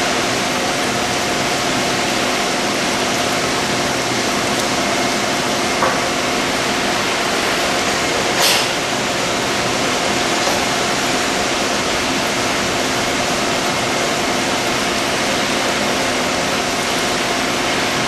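VMC220L CNC vertical machining center face-milling a cast housing under flood coolant: a steady hiss of coolant and cutting over a steady spindle hum. A brief click comes about six seconds in and a louder one a couple of seconds later.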